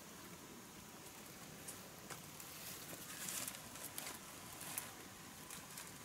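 Faint footsteps and rustling of leaves and brush as a person climbs over rocks on foot carrying a leaf-filled basket, a few soft scuffs scattered through.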